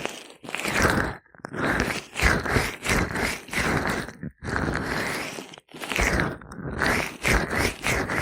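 Gloved hands rubbing oil over an ear close to the microphone: a series of wet rubbing strokes, each about a second long, with brief pauses between them.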